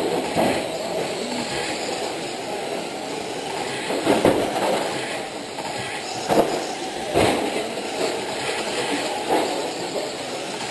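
Radio-controlled late model race cars running laps on an indoor dirt oval: a steady rumble of the cars on the clay, swelling louder several times as cars pass close by.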